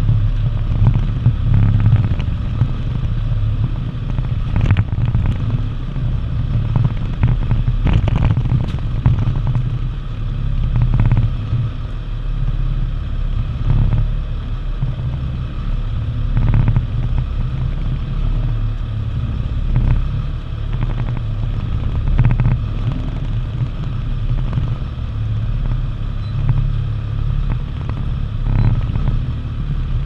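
Fishing boat's engine running with a steady low rumble, with a few faint knocks now and then.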